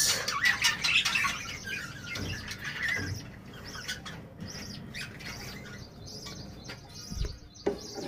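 Lovebirds chirping: quick, high twittering calls, louder in the first few seconds and then fainter. A single knock comes near the end.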